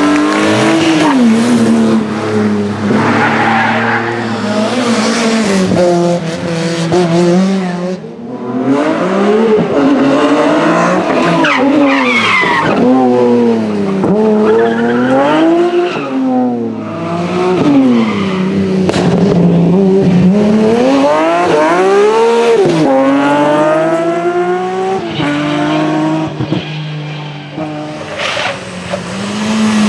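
BMW rally car engines revving hard, the pitch climbing repeatedly as they accelerate through the gears and dropping sharply on each lift-off or gear change, with cars passing close by.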